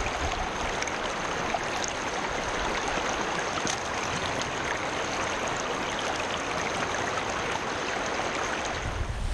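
Shallow creek water running and rippling over stones close to the microphone, a steady rushing that continues throughout.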